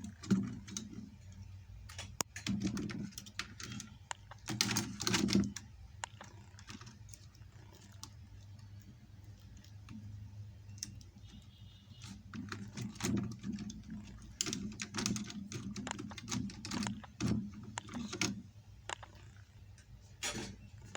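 Irregular clicks and light clattering of small laptop parts being handled and fitted as a RAM module and display are put back on a laptop motherboard, over a low steady hum.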